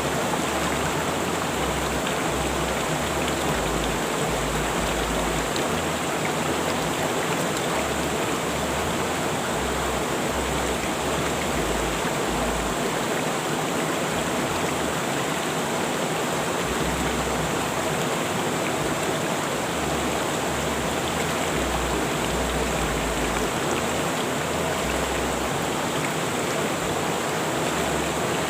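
River water rushing steadily, an even, unbroken sound of flowing water.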